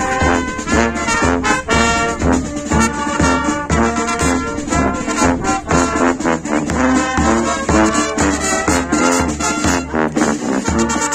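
Village brass band playing a march: trumpets and trombones over a steady bass-drum beat of about two strokes a second.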